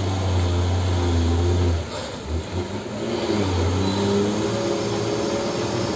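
Hino dump truck's diesel engine running under throttle, a steady low drone that dips briefly about two seconds in and then picks up again.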